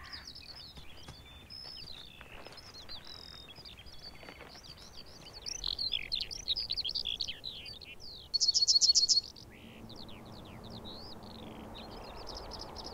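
Eurasian skylark singing: a long, fast run of high chirps and warbling notes, with a loud, quick trill lasting under a second about eight seconds in.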